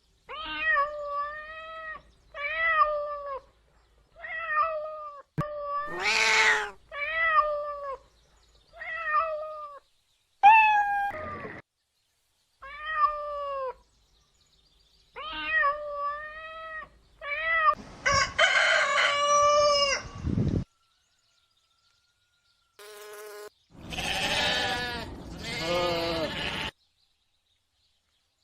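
A cat meowing over and over, about a dozen short rising-and-falling meows with silent gaps between them, followed in the second half by two longer, louder and harsher calls.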